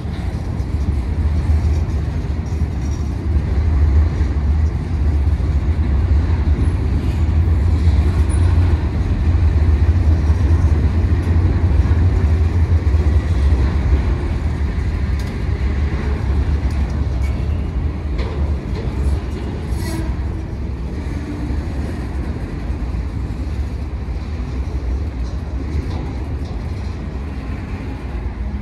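Empty centerbeam flatcars of a freight train rolling slowly past, a steady low rumble of steel wheels on rail with a few light clanks. The rumble is loudest midway and eases toward the end.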